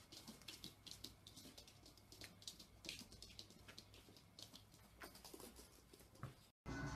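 Faint, quick, irregular clicks of a rabbit's claws pattering on a hard floor as it hops and spins, several clicks a second.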